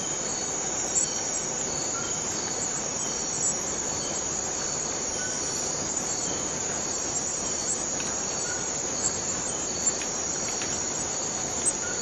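Rainforest cicadas buzzing in a steady high-pitched drone, with short faint chirps repeating through it and a few brief louder ticks.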